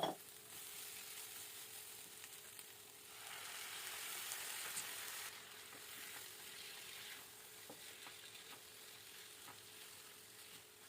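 Chicken tikka pieces frying with a faint sizzle, which swells for about two seconds midway and then settles back. A short knock comes right at the start.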